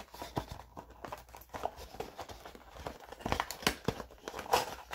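Cardboard box being handled and opened by hand: irregular scrapes, taps and rustles of the card, growing busier about three seconds in.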